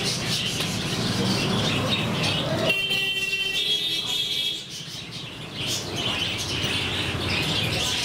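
A flock of budgerigars chattering with rapid chirps over a steady low background rumble. Near the middle a steady high-pitched tone sounds for about a second and a half.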